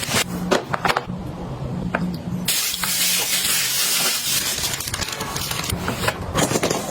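A few light clicks and handling knocks, then a steady, spray-like hiss lasting about three and a half seconds.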